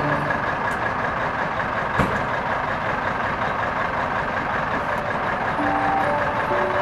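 A big truck's diesel engine idling steadily, with one sharp click about two seconds in.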